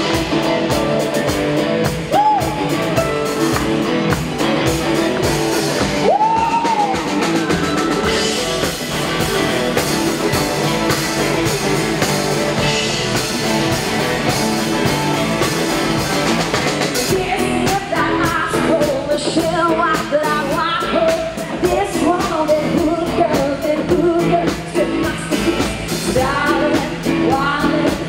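A live country-rock band playing: drum kit, electric guitars and bass guitar, with sung vocals that come to the front from about halfway through.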